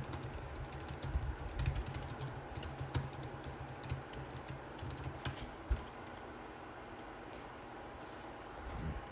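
Light clicks and knocks of PVC pipes and plastic connectors being handled and fitted together, most frequent in the first six seconds.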